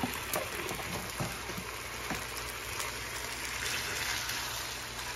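Chicken pieces sizzling in hot oil in a nonstick frying pan, a steady hiss, with a few light taps of a wooden spatula against the pan in the first two seconds.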